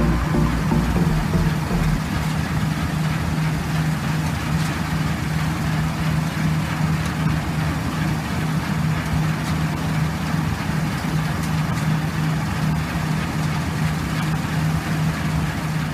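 Combine harvester running steadily, a constant engine drone.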